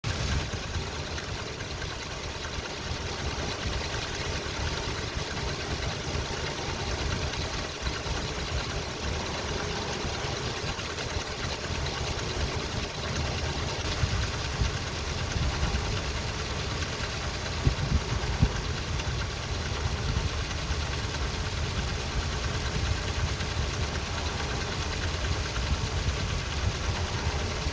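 2006 Nissan Frontier engine idling steadily, making the noise that appeared after a head gasket replacement. A few brief louder knocks stand out around the middle.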